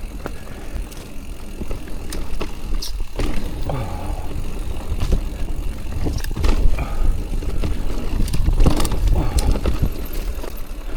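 Electric mountain bike riding down a wet, rooty trail: a steady low rumble of tyres and air, broken by frequent sharp rattles and knocks from the chain and frame as the wheels go over roots.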